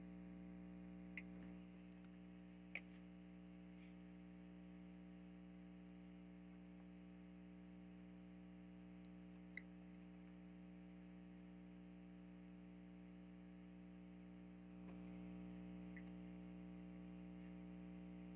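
Near silence: a steady electrical hum, which gets slightly louder near the end, with three faint computer-mouse clicks in the first ten seconds.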